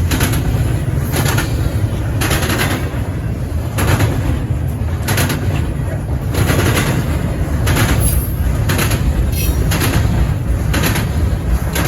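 Intermodal freight cars rolling past over a steady low rumble, their wheels clacking sharply over rail joints about once or twice a second.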